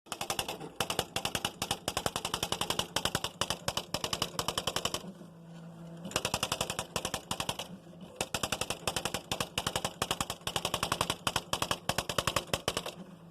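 Smith Corona Mark XV electronic typewriter typing by itself in its built-in demonstration mode: fast runs of sharp strikes, about ten a second. Twice the typing stops briefly, about five seconds in and near eight seconds, leaving a low steady motor hum before the strikes resume.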